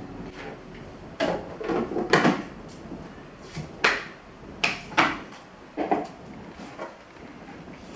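Kitchen items, such as food containers and their lids, being handled and set down: a series of irregular knocks and clacks.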